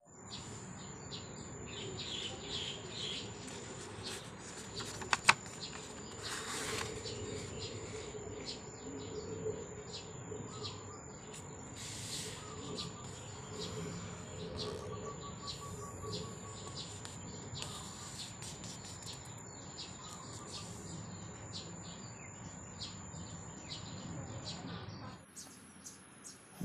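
Birds chirping, with paper rustling and sliding as a sheet is folded in half and creased by hand. A thin steady high tone runs underneath, and two sharp clicks come about five seconds in.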